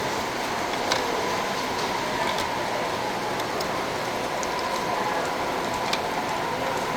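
Miniature model trains running on a museum layout: a steady whirring rumble with a faint whine, broken by a few sharp clicks about a second in, near six seconds and at the end.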